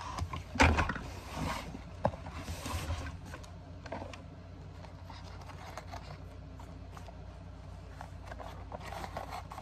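Plastic toy trash can and toy garbage truck being handled: one loud knock about half a second in, then scattered light plastic clicks over a low steady hum.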